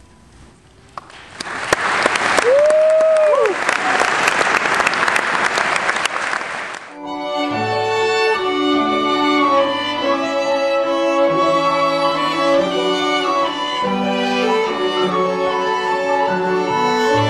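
An audience applauding, with one cheer rising and falling in pitch among the clapping, which stops about seven seconds in. Then string music with violin and cello begins, sustained notes in several layers.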